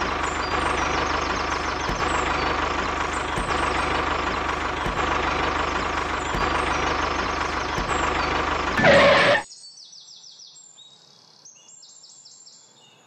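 A tractor engine running steadily, swelling briefly before cutting off abruptly about nine seconds in; faint birds chirping follow.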